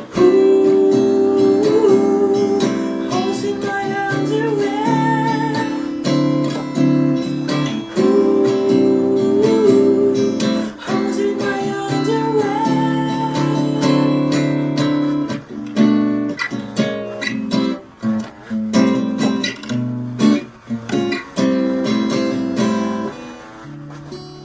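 Background music: a song played on strummed acoustic guitar, with a melody line over the chords, growing quieter near the end.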